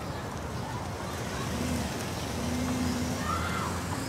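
An SUV's engine and tyres as it pulls away: a steady low rumble that swells a little about two seconds in.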